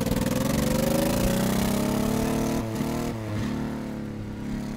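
Mini truck's small engine revving as it pulls away, rising in pitch over the first couple of seconds. The note dips briefly about three seconds in, then grows fainter as the truck drives off.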